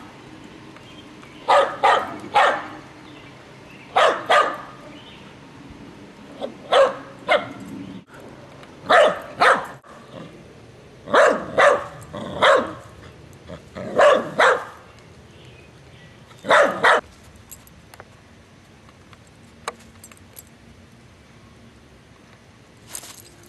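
Small white poodle-terrier-type dog barking at a dandelion in short volleys of two or three barks, a volley every two to three seconds. The barking stops about two-thirds of the way through, leaving a few faint clicks and one short sound near the end.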